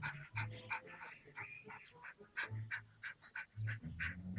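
A small dog panting in quick, short breaths, about three to four a second, worked up from fighting a cobra.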